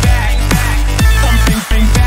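Electronic dance-style background music with heavy bass and a beat about twice a second.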